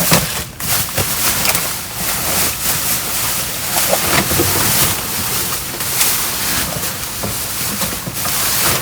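Continuous rushing and rustling noise with many short knocks and crackles: trash bags, boxes and rubbish being handled in a dumpster, with the rushing of wind on the microphone.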